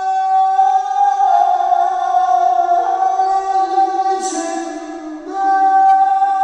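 Slow background music of long held notes with a singing voice.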